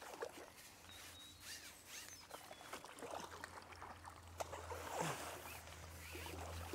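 Soft, irregular splashing and dripping water as a hooked skimmer bream is drawn over a landing net and lifted out of the lake, with short high chirps over it.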